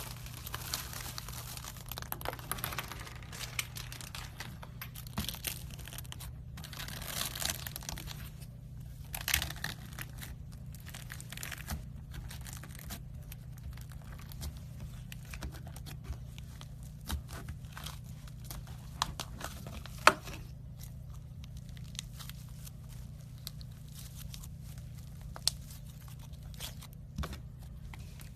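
Slime being handled up close: stretched, squeezed and pressed, giving a continuous run of crackling, sticky tearing and small popping sounds, with one sharp click about twenty seconds in.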